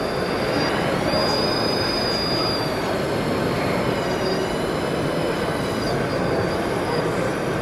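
High, thin whines from an RC O&K RH6 model excavator's hydraulic pump as it works its boom and bucket, over a steady background of hall noise. The clearest whine holds for about a second and a half starting about a second in; fainter whines shift lower in pitch later on.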